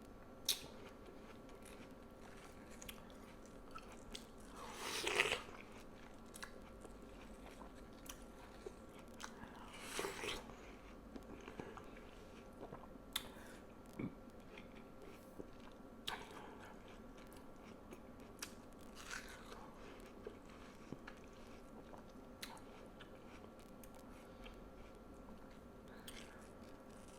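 Watermelon being bitten and chewed close to the microphone: crisp, juicy bites, the two loudest about five and ten seconds in, with small wet chewing clicks between.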